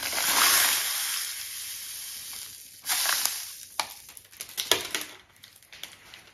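Granulated white sugar pouring into a mixing bowl on a kitchen scale: a steady hiss for about three seconds that tails off, a second short pour, then light rustles and clicks from the packet.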